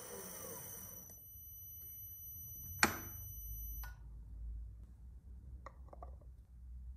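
A metal lathe turning brass runs for about a second and stops. A single sharp metallic clink comes about three seconds in, then a few faint small clicks near six seconds, over a low steady hum.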